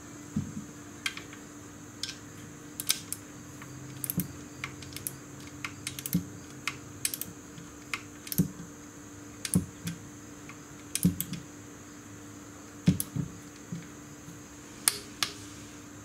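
Socket wrench ratcheting in irregular strokes, sharp metallic clicks with an occasional low knock, as the engine oil drain plug is screwed back in. A faint steady hum lies under it.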